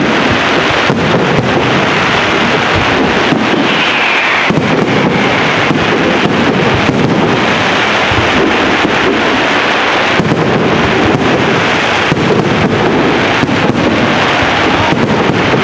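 Aerial firework shells bursting one on top of another in a dense, continuous barrage of bangs and crackles.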